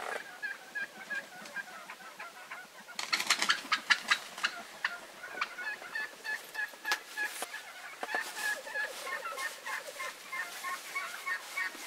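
A large flock of wild turkeys calling from the roost: a steady chatter of short, repeated calls from many birds. About three seconds in comes the loudest stretch, a burst of gobbling.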